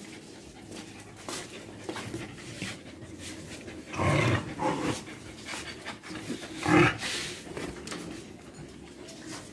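Dogs panting, with two short, louder dog vocal sounds, one about four seconds in and one near seven seconds.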